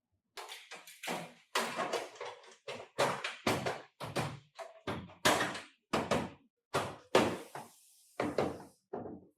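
A rapid, irregular series of about a dozen knocks and thuds, one or two a second, with a short hiss after one of them near the end.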